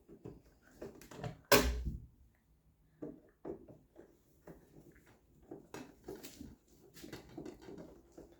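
Clicks, scrapes and knocks of a screwdriver working on a wall switch and its cover plate as the old switch is taken off, with one loud sharp knock about a second and a half in.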